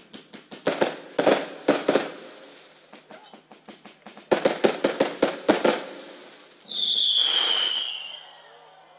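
Fireworks going off: two volleys of rapid cracking bangs, a few a second, then near the end a loud shrill whistle from a whistling firework, falling in pitch for about a second and a half.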